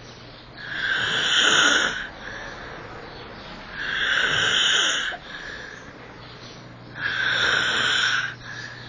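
A man snoring loudly and harshly in his sleep: three long snores about three seconds apart, each over a second long, with a shorter, softer breath after each.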